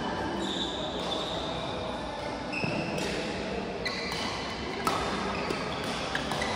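Badminton doubles rally: several sharp racket hits on the shuttlecock, with shoes squeaking briefly on the court floor between them.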